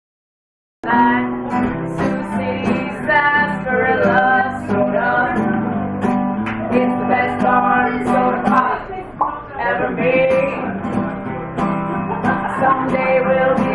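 Live acoustic guitar strummed with a sung melody, starting about a second in.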